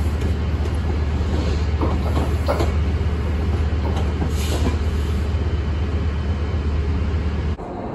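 Metrolink commuter train pulling out and rolling away along the platform, with a steady low rumble and scattered clicks from the wheels on the track. The sound cuts off abruptly near the end.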